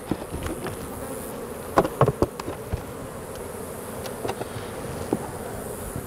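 A colony of honeybees buzzing steadily around the hive entrance, the bees agitated from the hive being opened and worked. A few short knocks come about two seconds in.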